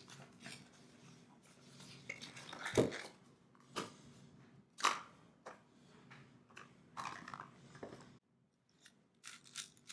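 Plastic packaging crinkling and irregular sharp clicks as a 5x5 speed cube is unpacked and handled, with a louder click about three seconds in and another near five seconds.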